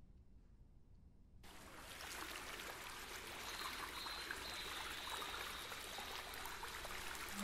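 Faint, even hiss that comes in abruptly about a second and a half in and slowly grows louder, with a faint high whistle through the middle; no clarinet tone sounds yet.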